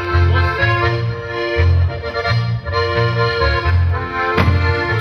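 Band playing traditional Tyrolean folk music: held chords over a bass line that steps on about twice a second.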